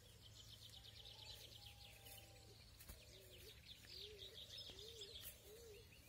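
Faint bird sounds: small songbirds twittering in quick high chirps throughout, joined in the second half by a series of low, evenly repeated cooing notes.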